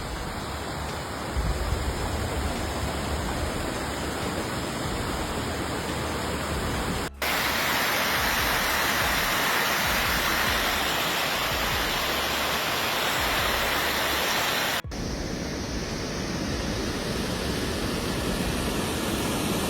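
Flash-flood water rushing down a street like whitewater rapids: a steady roar of water. It cuts abruptly twice, about seven and fifteen seconds in, as the clips change.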